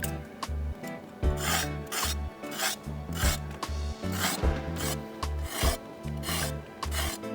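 A knife blade scraping the skin off a halved potato in quick rasping strokes, about two a second, over background music.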